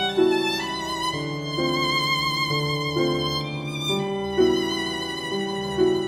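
Music: a violin melody with vibrato over sustained lower string notes, the notes changing about every half second.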